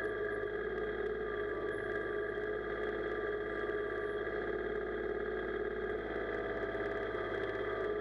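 Kubota compact tractor's diesel engine running steadily while it powers the backhoe, the boom swinging over the ditch.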